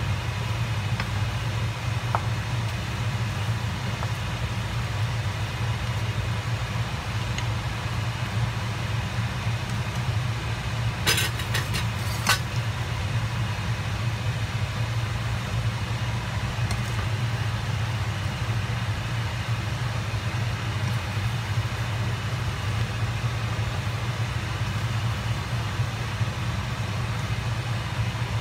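A steady low hum, with a faint scraping hiss of fettuccine being stirred in a stainless-steel skillet. A few quick clicks of the plastic pasta server knocking the pan come about eleven seconds in.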